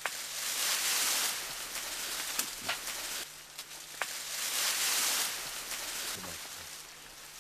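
Leaves and branches rustling in two loud swells, with a few sharp twig snaps, as juvenile mountain gorillas climb and swing through dense vegetation.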